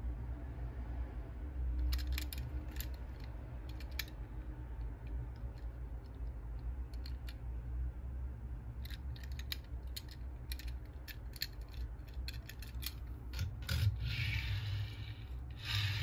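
Scattered light clicks and taps of a die-cast toy car being turned over in the fingers, then from about three-quarters of the way in the car's small wheels rolling and scraping across a wooden tabletop as it is pushed back and forth.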